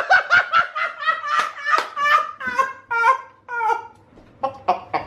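Laughter: a run of quick ha-ha bursts falling in pitch, a short pause about four seconds in, then a few shorter bursts.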